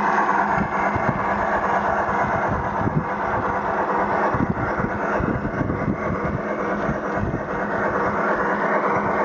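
Battery-powered Accucraft K27 model steam locomotive running along garden-railway track, its old Sierra onboard sound unit playing steam running sounds over the rumble of the wheels on the rails. The owner says the sound unit is not quite set up right.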